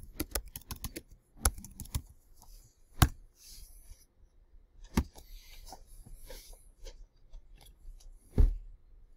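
Computer keyboard typing: a quick run of keystrokes, then single sharp key or mouse clicks a second or two apart, the loudest a heavier click near the end.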